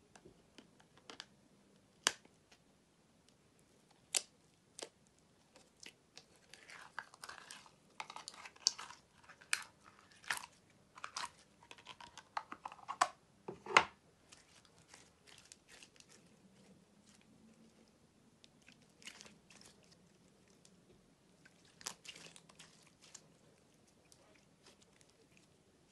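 Sharp clicks as a small eyeshadow case is handled and opened, then a dense run of crisp crunching and crackling as red pressed eyeshadow is broken up by hand, loudest from about six to fourteen seconds in, with scattered clicks and crackles after.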